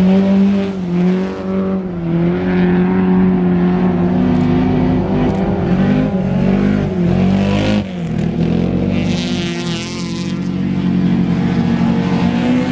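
Studded-tyre ice-racing car engine revving hard, its note rising and dropping several times as it accelerates, shifts and lifts off along the ice track.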